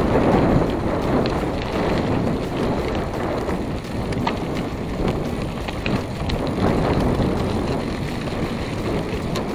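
Mountain bike rolling along a dirt track, with wind buffeting the microphone in surges and small rattling clicks from the bike over the bumps.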